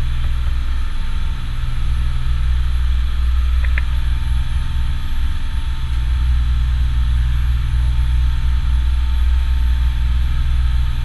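A steady low engine drone with a constant rumble.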